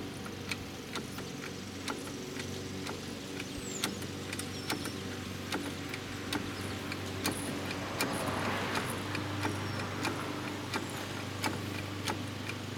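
Hand-pumped 5-ton hydraulic puller being worked against a rust-seized brake rotor, clicking about twice a second with each stroke of the handle as pressure builds. A steady low hum runs underneath.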